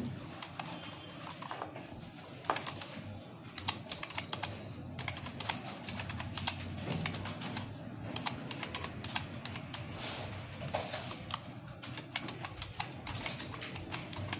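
Computer keyboard being typed on: quick, irregular key clicks as serial numbers are entered.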